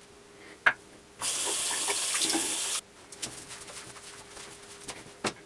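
Bathroom water tap turned on and running for about a second and a half, then shut off abruptly: rinsing the lather off the safety razor between shaving passes. A sharp click comes just before it, and light taps and ticks of the razor follow.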